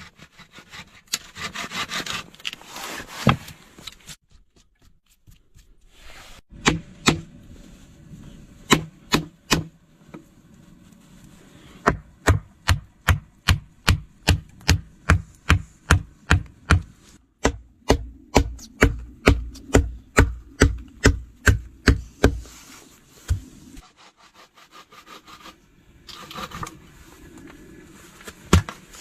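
Wood being struck with a tool, as in chopping or splitting: a few irregular blows, then a steady run of about two blows a second lasting some ten seconds, with rubbing and scraping between.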